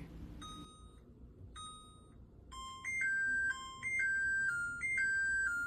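Microwave oven's electronic beeper: two short, faint beeps, then from about halfway in a louder little melody of stepped beeps, as its sound is switched back on.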